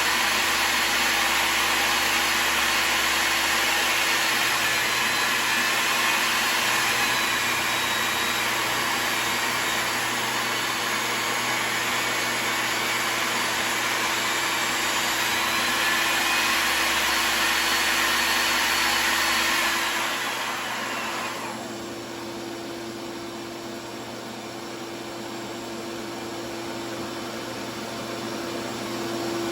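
Skil 10-inch portable table saw (TS6307) running, its motor and blade cutting through a 2x8 treated board at a steep angle. About twenty seconds in the sound drops and falls in pitch as the saw winds down, and a quieter steady hum remains.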